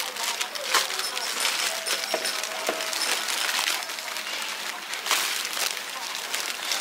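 Stiff clear plastic packaging on bagged fishing lures crinkling and rustling as a hand handles it, with many small clicks and taps.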